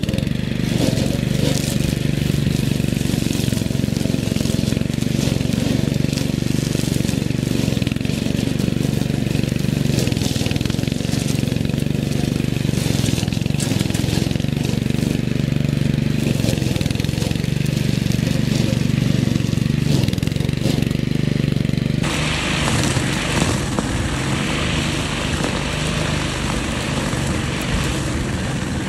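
A wheeled string trimmer's 6.5 hp four-stroke engine runs steadily while its nylon line head cuts vegetation, with scattered ticks. The sound changes abruptly about three-quarters of the way through.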